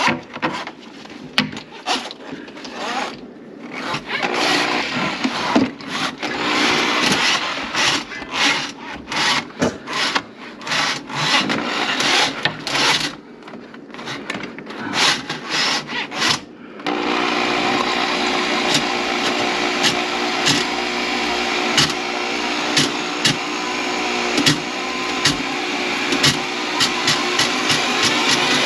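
Irregular scraping and rubbing with sharp clicks. About 17 seconds in, an electric motor starts and runs steadily with repeated clicks, its pitch rising near the end.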